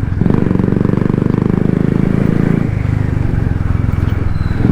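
Royal Enfield Classic 350's single-cylinder engine running under way, its exhaust beat thumping steadily; the beat softens about two-thirds of the way in.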